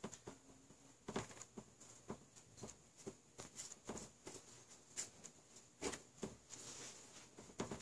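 Paintbrush dabbing paint onto a papier-mâché volcano: soft, irregular taps, with a short brushing stroke near the end.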